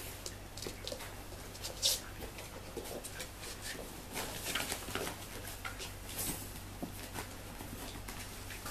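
Tibetan terrier puppies playing: scattered scratches, taps and scuffles of small paws on a hard floor and against a fabric play tunnel, with a sharper knock about two seconds in.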